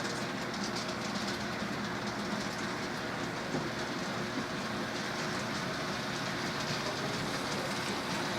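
Model train running along layout track: a steady rolling noise of wheels and motor, with faint irregular clicks over the rails.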